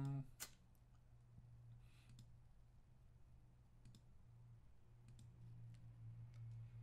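A few faint, scattered computer mouse clicks over a low steady hum, the sharpest about half a second in.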